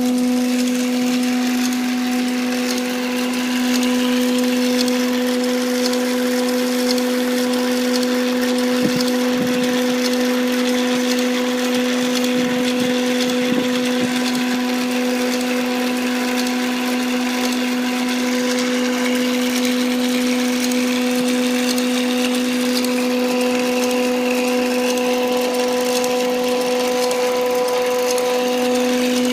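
Small electric motor of a hobby robotic car-washer model running steadily with a constant hum.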